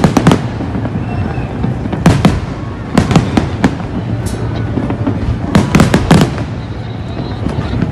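Aerial firework shells bursting overhead, a run of sharp bangs in irregular clusters: a pair at the start, one about two seconds in, three quick ones around three seconds, and a tight cluster near six seconds. A steady low background noise carries on between the bangs.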